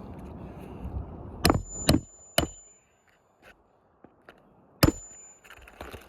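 Hammer blows on an asphalt shingle roof: four sharp strikes, the first and last ringing with a high metallic tone, after some light scraping on the shingles.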